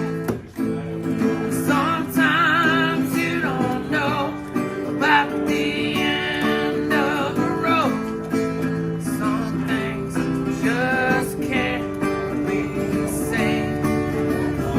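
Country song sung by a man, his held notes wavering with vibrato, over strummed acoustic guitar.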